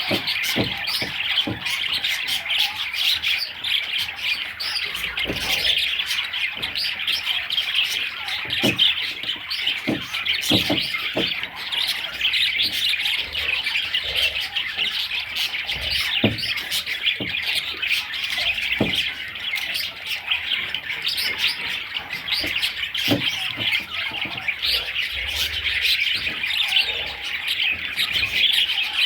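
Several budgerigars chirping and chattering continuously, a dense warbling babble with squawks, with scattered sharp taps or clicks through it.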